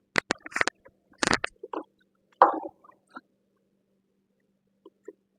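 Sharp clicks and knocks from tilting a table saw's blade to a 15-degree bevel, bunched in the first three seconds with the loudest knock a little over a second in, then two faint ticks near the end.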